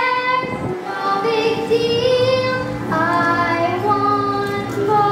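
Young girls' voices singing a show tune in long held notes over musical accompaniment.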